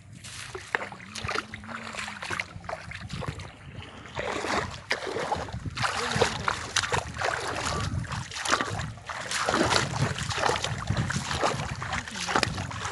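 Kayak paddle dipping and pulling through the water: irregular splashing and dripping, busier from about four seconds in.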